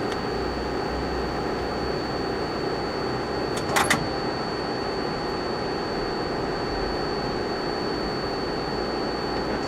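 1986 EMCO 340 CNC lathe running, a steady machine hum with a thin high tone, and two sharp clicks close together a little under four seconds in.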